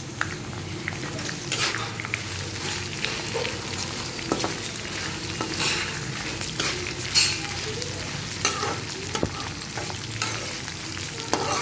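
Freshly added sliced onions frying in hot oil in a metal kadai, sizzling steadily while a metal spatula stirs them, with irregular scrapes and knocks of the spatula against the pan about once a second.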